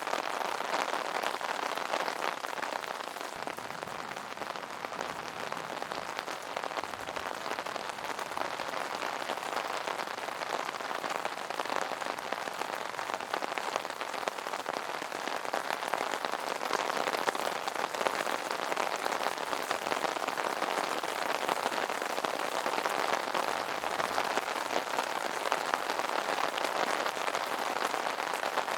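Steady rain pattering on an umbrella's fabric canopy, a dense even crackle of drops.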